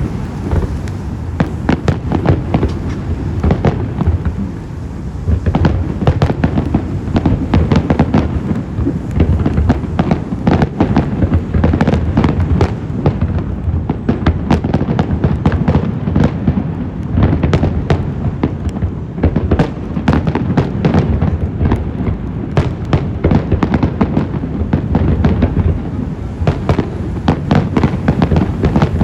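Fireworks display going off continuously: rapid crackles and bangs over a constant low rumble of bursting shells.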